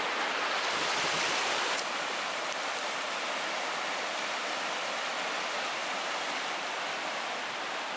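Fast mountain river rushing over rocks: a steady roar of white water that drops a little in level about two seconds in.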